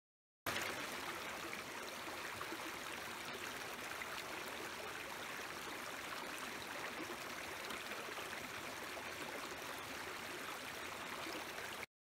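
Shallow rocky mountain stream running over stones: a steady rush and trickle of water that cuts in about half a second in and cuts off abruptly near the end.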